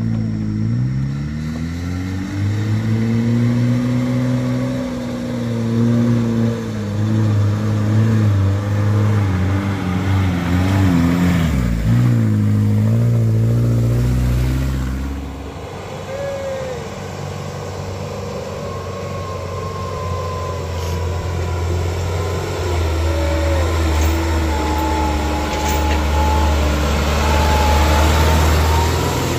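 Truck's diesel engine labouring up a steep climb, its pitch rising and falling with the revs. About twelve seconds in the revs dip and pick up again. It then settles to a steadier, lower note, with a thin high whine over it.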